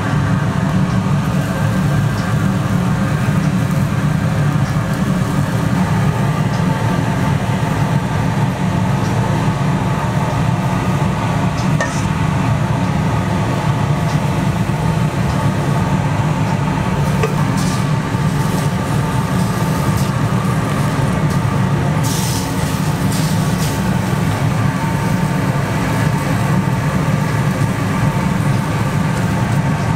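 A steady low mechanical drone at an even level, with a few light clicks and a short hiss about 22 seconds in.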